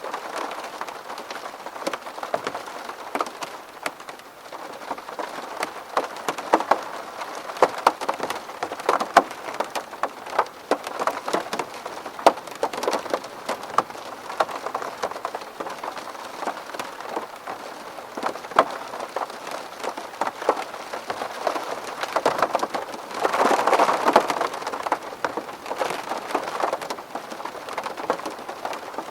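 Rain falling on a window pane: a steady patter with many sharp drop ticks, swelling heavier for a couple of seconds near the end.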